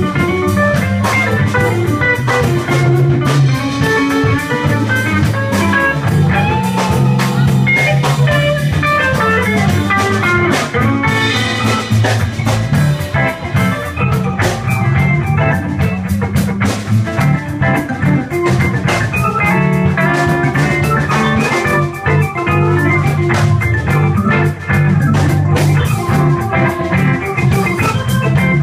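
Live blues band playing an instrumental passage: electric guitar over a repeating bass line, a drum kit keeping time and keyboard.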